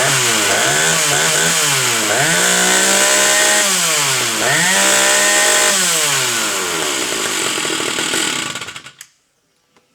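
Stihl 056 Magnum II two-stroke chainsaw engine revving up and dropping back several times, then cutting off suddenly near the end.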